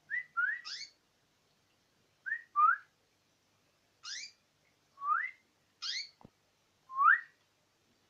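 Domestic canary giving short, rising whistled call notes. They come in quick twos and threes at first, then singly about once a second.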